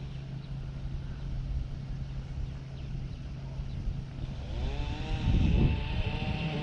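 A motor runs with a steady low hum, then about four and a half seconds in it rises in pitch and holds there, as an engine does when it speeds up.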